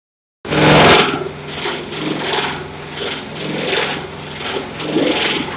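Compost and grass chopper machine running with a steady motor drone, its blades shredding green plant stalks as they are fed into the hopper, heard as repeated bursts of crackling.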